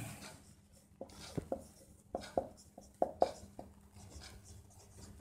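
Marker pen writing a word on a whiteboard: a quick run of about ten short, faint strokes and taps.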